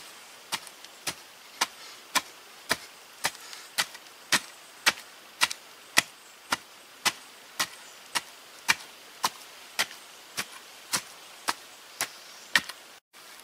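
A wooden digging stick is jabbed over and over into hard clay soil, loosening the clay. It gives sharp strikes at a steady rhythm of a little under two a second.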